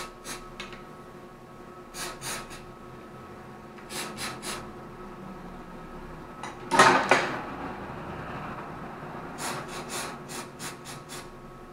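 Aerosol can of silicone spray giving short puffs onto a fishing rod's line guides, in quick clusters of two to four. There is one louder, longer burst about seven seconds in, over a faint steady hum.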